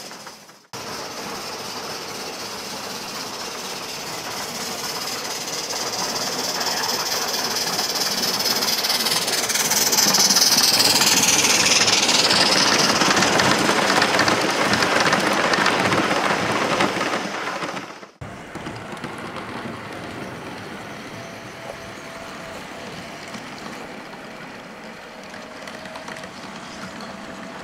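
G-gauge model train wheels rolling along the layout track. A rushing rumble builds as the passenger cars pass close by, is loudest in the middle, and cuts off suddenly a little over halfway. A quieter, steadier rolling sound from a smaller train follows.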